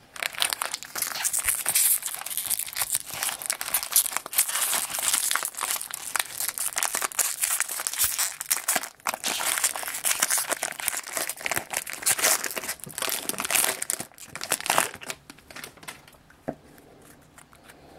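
Foil wrapper of a Topps baseball card jumbo pack crinkling and tearing as it is ripped open by hand. The crackling stops about three seconds before the end, leaving only a few faint clicks.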